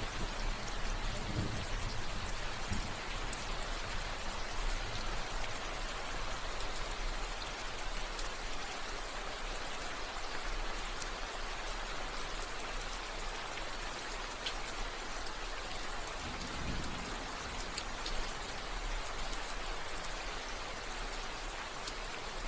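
Steady heavy rain falling, an even hiss with fine drop ticks. A low rumble fades out in the first couple of seconds and comes back briefly about two-thirds of the way through.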